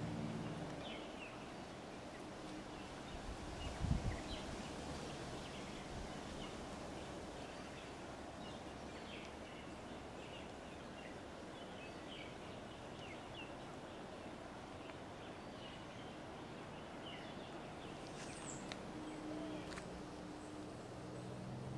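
Outdoor forest ambience: a steady hiss with many short, high bird chirps scattered throughout, and a single thump about four seconds in.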